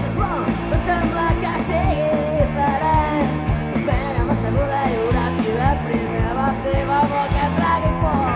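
Rock band recording playing: electric guitars, bass and a steady drum beat, with a wavering lead melody over them.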